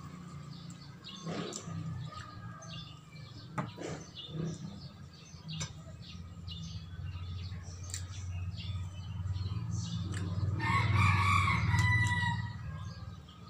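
A rooster crows once near the end, a long call of about two seconds and the loudest sound here. Underneath run a low steady hum and scattered small clicks and knocks of eating at the table.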